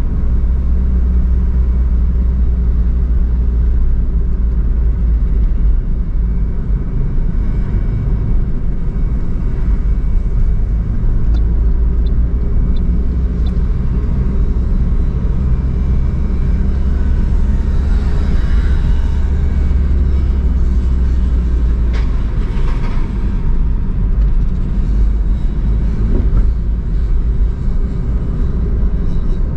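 A car being driven, with a steady low engine and road rumble. There is a sharp click about two-thirds of the way through.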